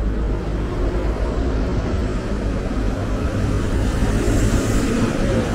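City street traffic: cars running past close by over a steady low rumble, the noise swelling about four seconds in.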